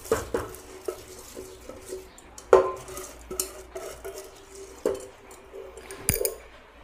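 Soaked rice poured from a steel container into an aluminium pressure cooker: the container's rim clinks and knocks against the cooker several times, each knock ringing briefly, while the wet grains slide in.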